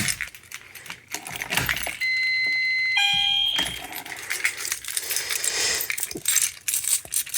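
Metal clicks and rattling from a Notifier manual fire alarm pull station being pulled and handled. About two seconds in, a steady electronic alarm tone sounds for about a second, switches to a lower, buzzier tone, and stops about half a second later.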